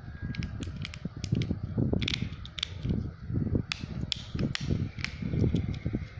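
Fidget toys being clicked and handled: a string of irregular sharp clicks over low rumbling handling noise.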